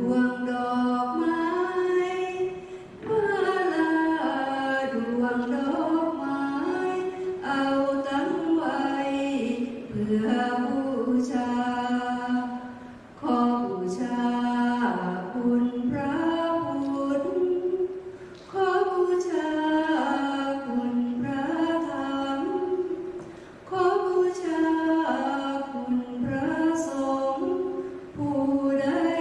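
A single unaccompanied voice singing a slow melody in long phrases, with short breaks between the phrases.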